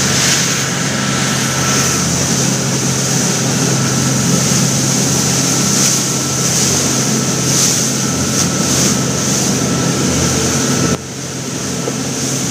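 Motorboat running at speed through rough water: a steady engine drone under the rush of the wake and spray, with wind buffeting the microphone. The sound drops abruptly in level about eleven seconds in.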